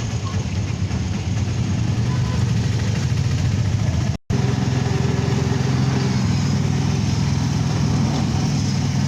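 A vehicle's engine running steadily with road noise, a low even hum. The sound cuts out for a split second about four seconds in.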